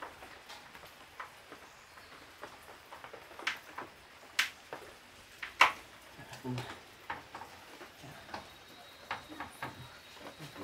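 Scattered sharp clicks and light taps of hands working a plastic wall switch and socket plate on a plank wall, with two louder clicks near the middle.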